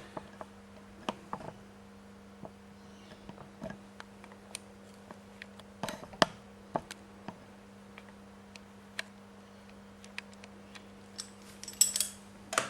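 Scattered light clicks and knocks of small steel spanner pieces and their adapter being handled and set down, with a short flurry of clicks near the end, over a faint steady hum.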